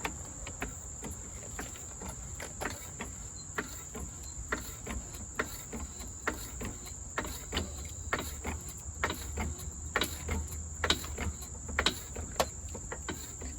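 Floor jack being pumped to lift the car, a sharp click at each stroke about every half second to a second, over a steady high-pitched tone.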